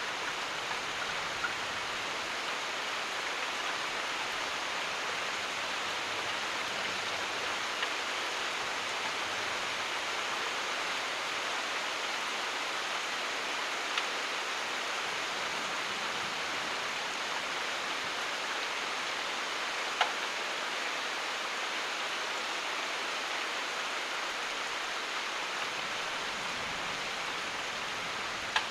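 Steady, even rainfall, with an occasional single sharp drop tick standing out from the wash about every six seconds.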